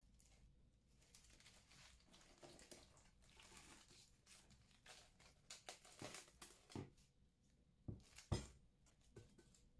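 Plastic cling film crinkling and rustling as it is stretched over a glass bowl, quietly, with several soft knocks in the second half.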